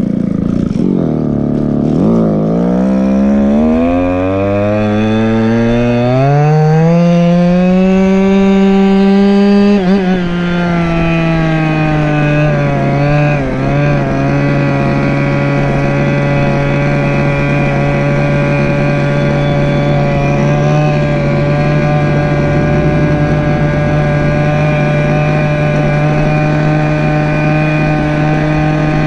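Go-Ped stand-up scooter's small two-stroke engine accelerating, its pitch rising steadily for about eight seconds, then easing off a little about ten seconds in and holding a steady cruising speed.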